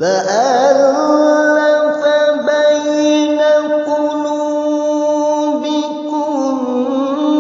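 Melodic Qur'an recitation (tilawah) by a single voice: it starts suddenly, slides up into a long held, ornamented note and steps down to a lower pitch about six seconds in.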